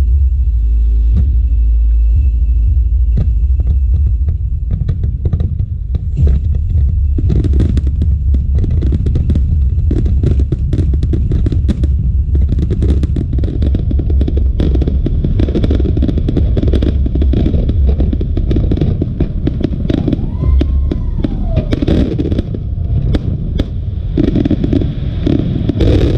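Aerial firework shells bursting overhead, bangs and crackling over a continuous low rumble, growing into a dense barrage after about seven seconds. A brief whistle rises and falls a little past twenty seconds.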